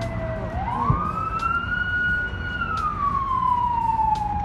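Emergency vehicle siren wailing: the tone rises quickly about half a second in, holds high for about two seconds, then falls slowly. A low rumble of street noise runs underneath.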